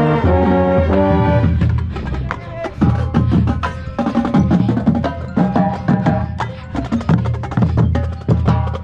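Marching band playing: held brass chords for about the first second and a half, then a percussion-driven passage of quick drum and block hits with short brass accents. It is heard from among the baritone horns.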